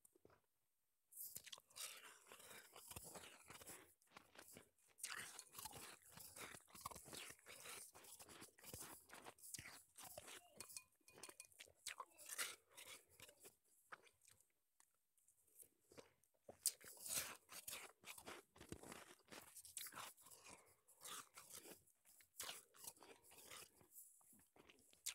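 Soft crunching of snowball shaved ice being chewed, close to an earphone-cable microphone held by the mouth: dense, irregular crunches that start about a second in, ease off briefly near the middle, and pick up again.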